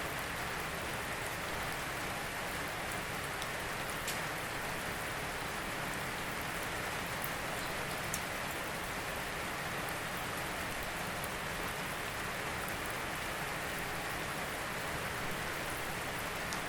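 Steady rain, with a few separate drops ticking now and then.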